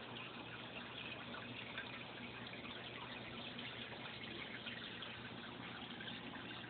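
Aquarium water trickling and bubbling steadily, with a low steady hum under it.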